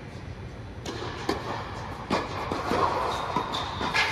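Tennis play on an indoor court: from about a second in, a series of sharp knocks of ball on racket and court, with a brief high squeak in the middle, over a steady low rumble.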